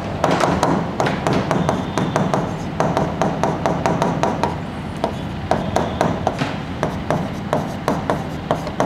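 Marker pen writing on a whiteboard: a string of short, irregular taps and scratchy strokes as letters are written, over a steady low room hum.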